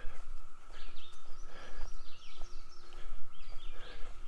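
Woodland songbirds chirping, a quick series of short calls one after another, over a steady faint hum and an uneven low rumble.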